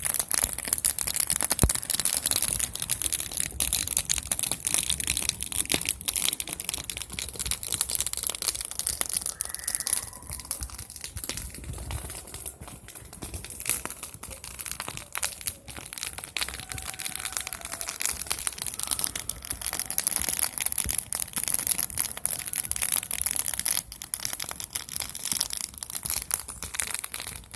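Campfire crackling with dense, irregular small snaps and pops of burning wood.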